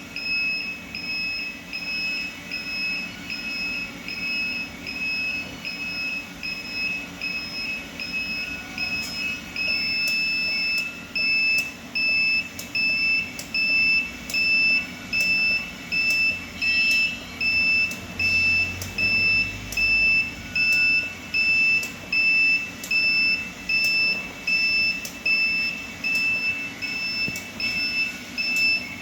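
Electronic beeper sounding a run of short high beeps, about one or two a second, with one longer unbroken beep about ten seconds in, over a low steady hum.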